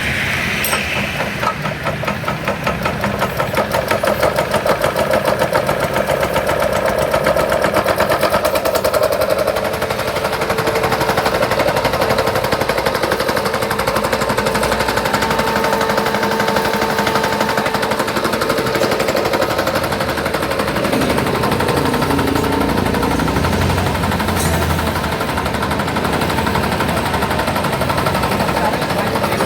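FFC 23 disc mill running as it grinds coffee, a loud continuous machine noise with a fast, even rattle.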